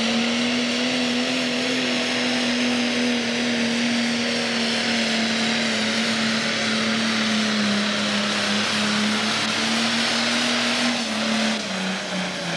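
Pro Stock pulling tractor's turbocharged diesel engine running flat out as it drags the weight-transfer sled down the track, a loud, steady engine note. Near the end the pitch drops in two steps as the engine is pulled down under the sled's growing load.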